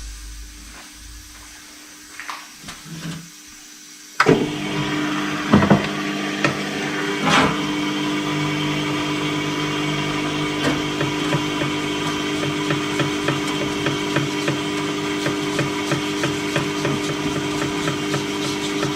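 A few light knocks of parts being handled, then about four seconds in a motor-driven machine switches on and runs steadily, with a hum, hiss and fine ticking.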